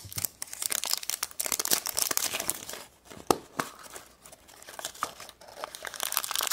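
The wrapper of a surprise egg crinkling and tearing as it is pulled open by hand, in bursts, with a quieter lull a little past the middle.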